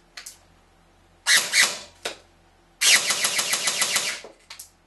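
APS ZM81D M4 airsoft electric rifle (AEG) firing on a 7.4 V LiPo battery: a faint click at the start, then two full-auto bursts, a short one a little over a second in and a longer one of about a second and a half near three seconds in. The V2 gearbox is cycling fast, a nice turnover.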